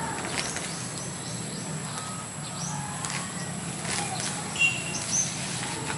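Small birds chirping in short, scattered calls, some as quick falling sweeps, over a steady low background rumble.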